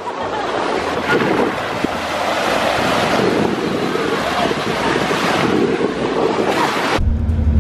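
Ocean surf washing in over the shallows, with wind buffeting the microphone. About seven seconds in it cuts off abruptly to a steady low rumble.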